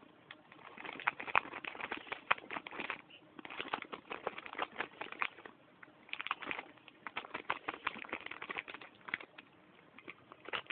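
Thin plastic snack bag crinkling and rustling in irregular bursts with short pauses, as something inside it moves about.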